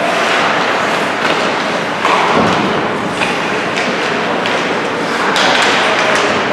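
Ice hockey play in a rink: several sharp thuds and knocks, typical of the puck, sticks and players hitting the boards, over a steady din of arena crowd noise.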